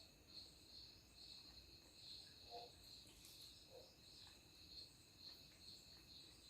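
Near silence with faint, steady cricket chirping, a high pulse about twice a second.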